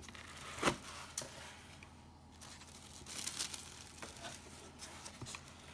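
Tissue paper rustling and crinkling in handfuls as it is pulled back off the contents of a cardboard shipping box, with a sharp crackle just under a second in and more around the middle.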